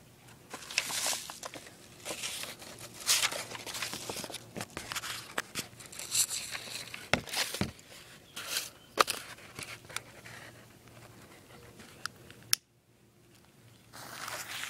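Paper rustling and crinkling as the torn, scorched pages of a paperback workbook are handled and firecrackers are laid inside, with irregular taps and clicks. A sharp click comes about twelve seconds in, then the sound drops out for over a second before the rustling resumes.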